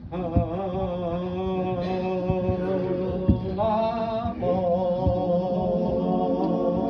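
A group of unaccompanied voices sounding and holding the opening notes of a shape-note hymn, shifting to new pitches partway through, as the key is set; the pitch is then judged a little sharp. A few faint knocks sound underneath.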